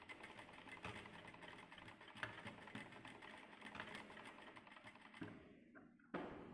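Industrial lockstitch sewing machine stitching, a fast even run of needle strokes that stops about five seconds in, followed by a sharp click near the end.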